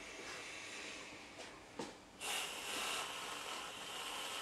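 Aerosol whipped cream can spraying upside down: a steady hiss of cream and propellant, which starts about two seconds in.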